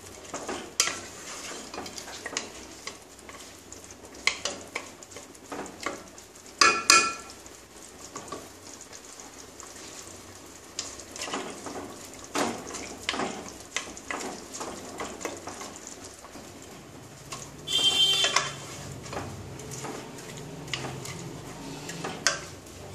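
Wooden spatula stirring and scraping chicken pieces around a nonstick pot, with a light sizzle of the chicken cooking in oil and yogurt juices. Two louder clatters of the spatula against the pot stand out, about seven seconds in and about eighteen seconds in.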